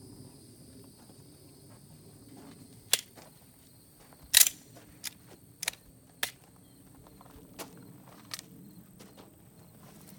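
Gunshots from a pistol: one crack about three seconds in, then a string of four about 0.6 s apart, the first of them the loudest, with two fainter cracks later on.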